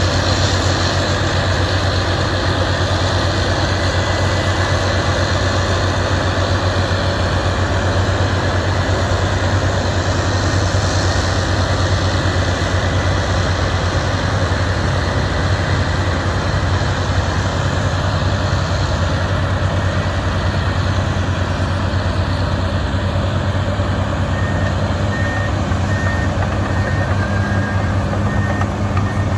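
Heavy diesel earthmoving machinery running steadily at a construction site: a low, even engine drone. A reversing alarm beeps faintly about once a second near the end.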